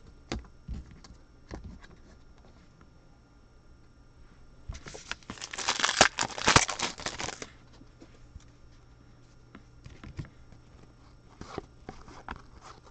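A trading-card pack wrapper torn open and crinkled, in a burst of crinkling that starts about five seconds in and lasts two to three seconds. Light clicks and rustles of cards being handled come before and after it.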